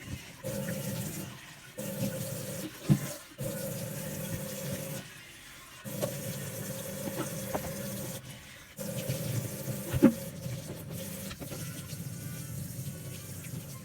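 Water running from a tap, breaking off briefly several times, with two sharp knocks, one about three seconds in and one near ten seconds.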